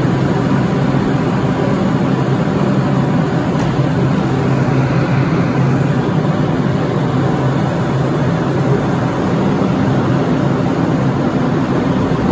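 Subway train running in an underground station: a loud, steady rumble that holds evenly, with no break.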